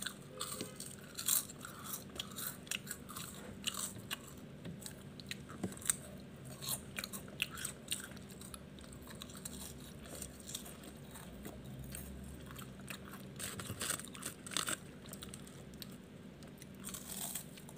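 Crisp wafer bars being bitten and chewed: irregular crunches and crackles, a few louder snaps among them.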